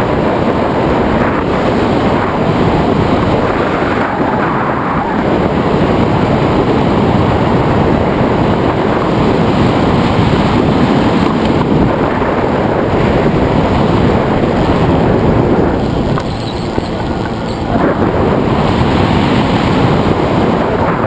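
Steady rush of air buffeting the microphone of a wing-mounted camera on a tandem hang glider in flight, easing slightly about three-quarters of the way through.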